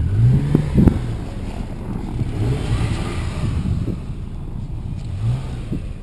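Toyota FJ Cruiser's 4.0-litre V6 revving in short repeated bursts as the truck pushes through deep snow, with a couple of dull knocks about a second in.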